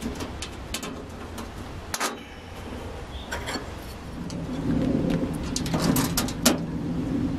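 Clicks and knocks of a sheet-steel guard panel being handled into place. From about four seconds in, a cordless drill runs steadily with a few short breaks, fastening the panel onto the sawmill frame.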